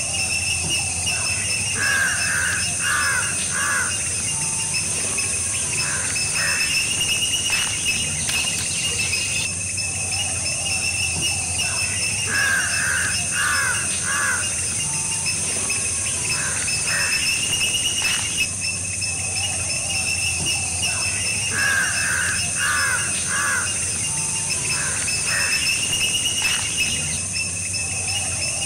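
Outdoor insect chorus buzzing steadily at a high pitch, while a bird gives a quick run of three or four harsh calls three times, about ten seconds apart.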